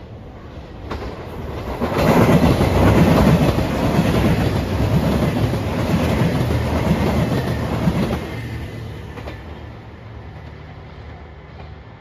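JR Shikoku 2700 series diesel multiple unit passing close by at speed: the train noise builds up about two seconds in, stays loud for about six seconds, then fades away as it goes.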